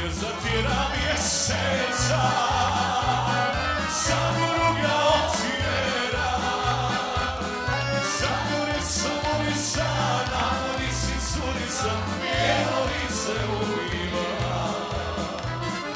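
Live Bosnian folk band playing a song: a man sings into a microphone over accordion, acoustic guitars and keyboard, with an evenly pulsing bass line underneath.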